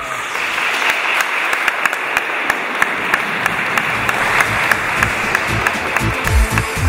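Audience applauding, a dense patter of many hands clapping. Music with a low pulsing beat comes in under it in the last couple of seconds.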